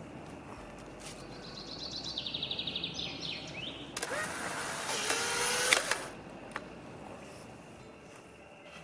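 Polaroid 1000 instant camera taking a picture: a run of fast high-pitched ticks, then its motor whirs for about two seconds as it drives the print out, ending with a click.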